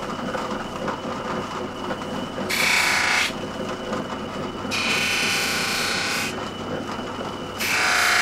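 Knives being fine-polished on a cloth buffing wheel of a polishing stand. The wheel runs with a steady low hum and a thin steady whine, and a knife blade is pressed against it three times, each pass a loud hiss lasting one to two seconds, the last starting near the end.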